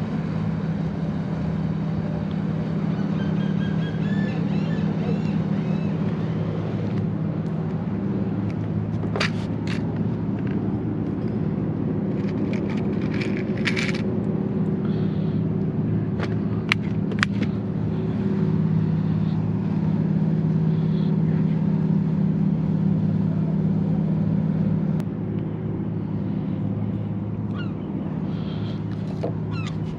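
An engine idling with a steady low drone, a little louder for a few seconds past the middle. Short sharp clicks come from a plastic tackle box of hooks being opened and handled.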